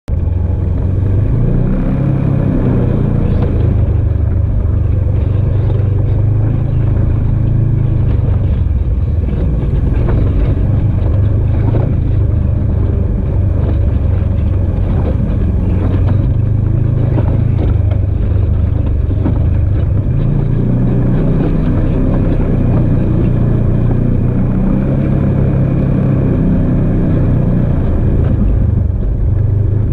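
Off-road vehicle's engine running steadily as it drives a sandy desert trail, with a continuous low rumble.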